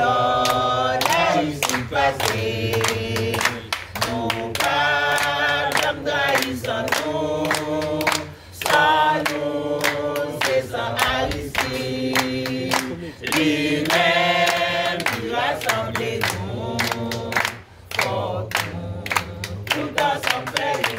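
A small group of men's and women's voices singing a song together unaccompanied, with steady hand claps keeping the beat.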